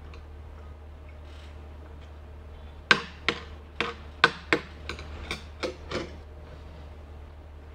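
Metal spoon clinking and scraping against a ceramic plate while gathering food: about ten sharp clinks in three seconds, starting about three seconds in, over a low steady hum.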